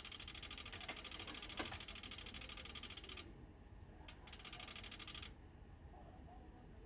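Toptek PA-80V/U dual-band amplifier clicking rapidly in bursts: a fast run of clicks for about three seconds, a single click, then another run of about a second, and one more lone click near the end. This is the amplifier's fault clicking on the 70 cm band.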